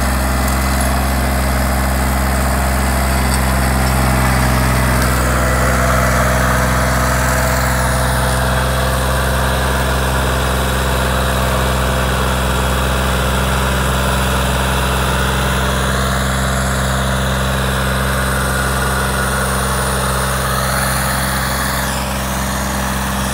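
Sonalika DI 35 tractor's diesel engine running steadily under full load in low-range third gear, dragging a heavy disc implement through loose soil. The new tractor is being run in.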